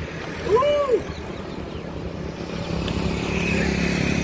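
Wind rumble on the microphone and road noise from riding along with a group of bicycles, with a low hum that grows louder toward the end. About half a second in comes one short call that rises and falls in pitch.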